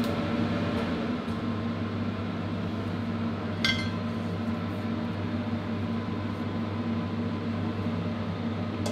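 Steady electric hum from an electric glass-top hob heating a stainless steel wok, with a single sharp metallic clink about three and a half seconds in.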